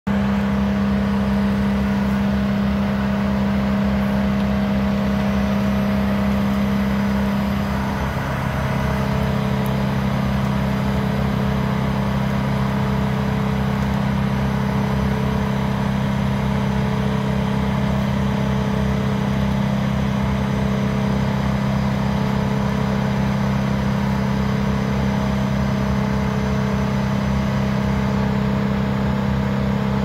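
A heavy work truck's engine running steadily at a constant speed, a loud, even drone.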